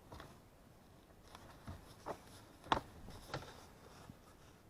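Scattered light clicks and knocks of a plastic lower dash trim panel being pried and unclipped by hand, about half a dozen, the sharpest a little past halfway.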